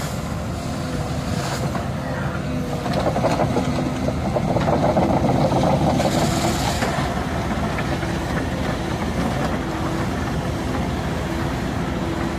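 Caterpillar 312 tracked excavator's diesel engine and hydraulics running steadily while it drives a mowing basket cutting weeds in a ditch. The sound grows louder and rougher for a few seconds in the middle, then settles back.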